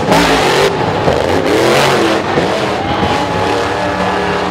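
Grave Digger monster truck's supercharged V8 engine revving hard during a wheelie, its pitch climbing and dropping, loud.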